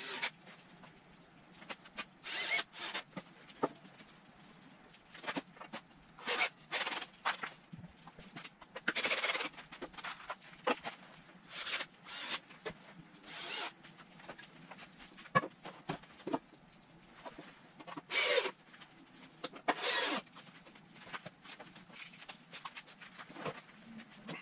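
Lumber being handled on a workbench: a string of irregular knocks, scrapes and rattles of wooden boards, one every second or so, with a few longer scraping noises of about half a second.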